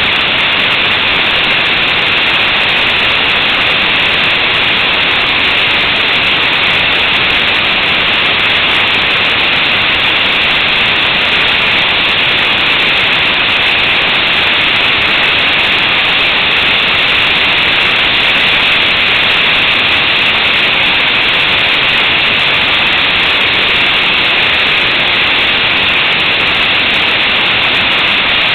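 Steady, loud wind and road noise on the microphone of a motorcycle-mounted action camera at road speed, an even rush with no distinct engine note.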